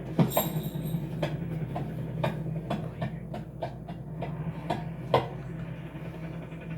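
Irregular light knocks and clicks over a steady low hum, coming several a second at first and then thinning out, with one sharper knock about five seconds in.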